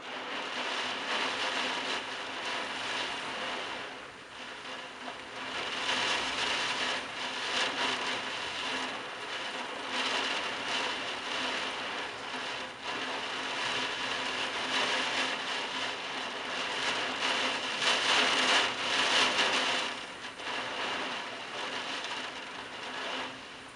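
Heavy wind-driven rain in a storm, a dense rushing hiss that swells and eases with the gusts, loudest about eighteen seconds in.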